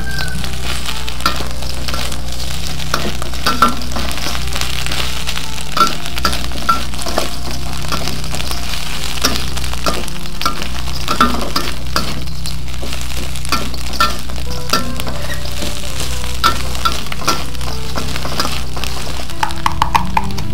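Metal spatula stirring fried tempe and sliced oil palm heart in a wok, with irregular clinks and scrapes of steel on the pan over a steady sizzle of frying. A steady low hum runs underneath.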